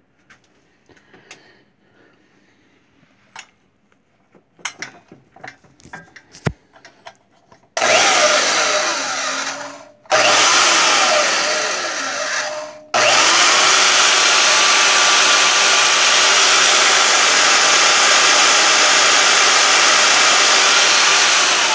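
Bauer portable bandsaw's electric motor running with the blade spinning through its guide bearings, an extra bearing stacked on each outer bolt to keep the blade aligned. The saw is switched on about a third of the way in, stops and restarts twice in quick succession, then runs steadily, after some light clicks and taps of handling.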